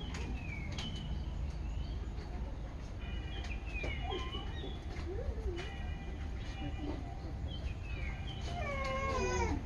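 Animal calls: a series of short chirps and cries with sliding pitch, then a longer, falling, meow-like cry near the end.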